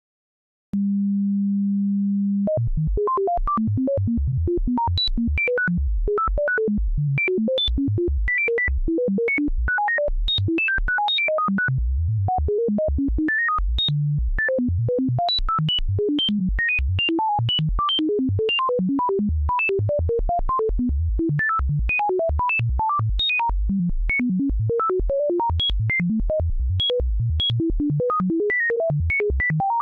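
Pure Data synth patch playing computer-generated bleeps and bloops: a steady low tone for about two seconds, then a rapid stream of short blips at randomly jumping pitches, several a second.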